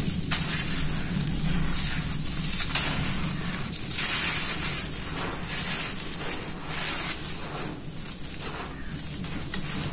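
Chunks of dry, crumbly red dirt being squeezed and crumbled by hand: a gritty crunching and crackling with loose grit trickling down. It comes in several louder swells as each handful breaks apart.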